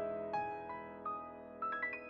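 Background piano music: a few single notes, then a quick rising run of notes near the end, each left to ring and fade.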